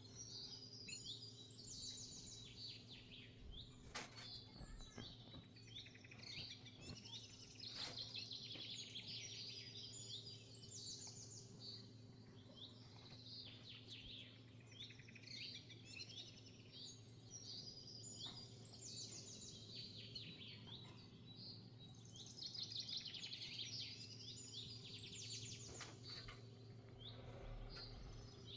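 A small songbird singing faintly in repeated rapid chirps and trills, over a steady low hum. A few sharp clicks come through, about 4 and 8 seconds in.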